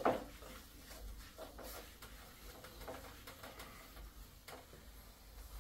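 Faint, scattered light ticks and knocks of a marker and board eraser against a whiteboard, the sharpest right at the start.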